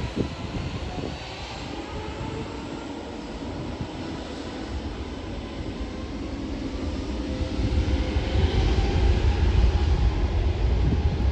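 Airbus A320's jet engines at takeoff thrust during the takeoff roll, a steady rush with a faint whine, growing louder with a deep rumble over the last few seconds.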